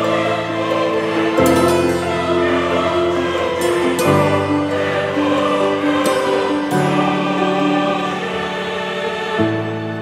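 Background music: slow, held chords that change about every two and a half seconds.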